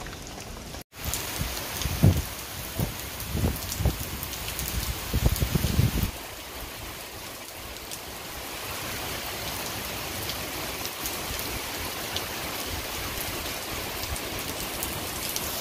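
Heavy rain pouring down, a steady hiss of rain on surfaces. Between about two and six seconds in, a few low thumps sound under the rain, and the sound cuts out for an instant about a second in.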